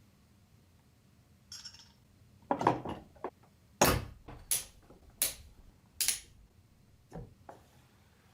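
Hard computer parts being handled and set down: a run of sharp clacks and knocks, the four loudest coming evenly about two-thirds of a second apart in the middle.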